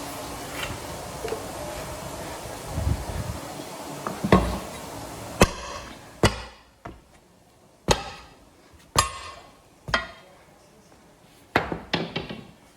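Hammer blows on metal during truck tyre work: a series of sharp strikes, roughly one a second, each ringing briefly, with a quick cluster of blows near the end. A steady background noise fades out about halfway through.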